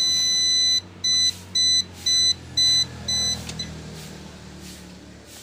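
Generator control panel's warning buzzer beeping with the key switched on: one long high beep, then five short beeps about two a second, the last one fainter.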